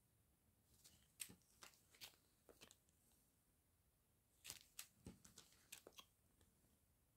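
Faint crinkling of small clear plastic zip bags of round diamond painting drills being handled, a few scattered crackles with a thicker cluster about halfway through.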